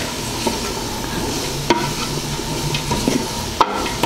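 Sliced onions, green peppers and celery sizzling in a large aluminium pot while a spatula stirs and scrapes through them. There are a couple of sharp knocks against the pot, one in the middle and one near the end.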